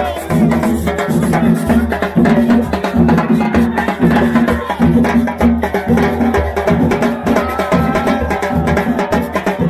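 Stadium fan band's drums and percussion playing a steady beat, about three beats every two seconds, with woodblock-like clicks and voices singing over it.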